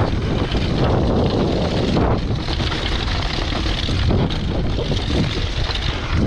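Mountain bike descending a dirt and stone trail at speed: tyres rolling and crunching over the ground, with a constant rattle from the bike and wind buffeting the microphone. The bike's rattling noise was traced by the rider to a loose cassette.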